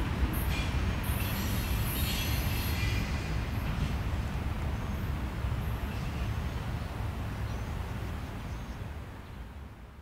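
A freight train rumbling along the rails, with bouts of high wheel-on-rail squealing during the first three seconds. The rumble gradually dies away and fades out near the end.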